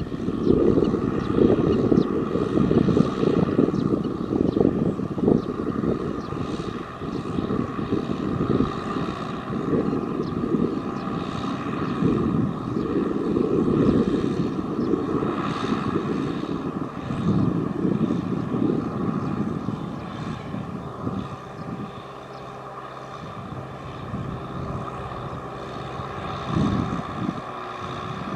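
Tractor engine running hard while ploughing in deep mud, its drone swelling and easing every second or two. It eases off for a few seconds about three quarters of the way through.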